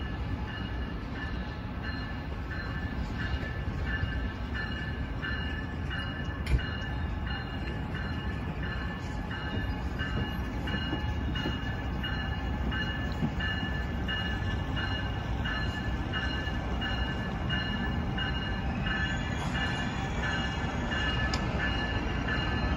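Train at the station with a bell ringing steadily about twice a second over a low engine and rail rumble that grows slowly louder; a single sharp click about six seconds in.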